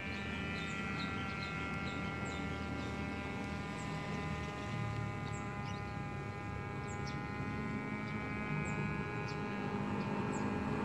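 Handmade foam RC plane's motor and propeller droning steadily in the air, one even pitch that rises slightly near the end.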